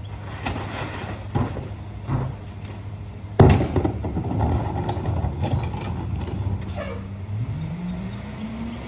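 International garbage truck with a McNeilus rear-loader body idling while recycling bins are tipped into its hopper: a few knocks, then a loud bang about three and a half seconds in as a bin hits the hopper and its load rattles in. Near the end the engine revs up, rising steadily in pitch.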